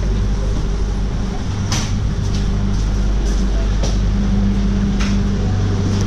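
Steady low hum inside a passenger train carriage, from its onboard machinery, with a few sharp clicks and knocks about two, four and five seconds in.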